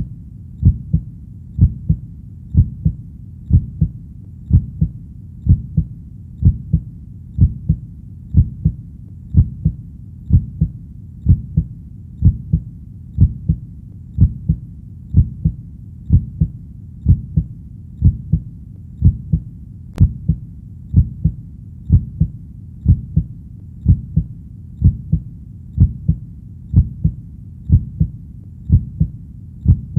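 Heartbeat, a steady low lub-dub double thump repeating evenly at about one beat a second.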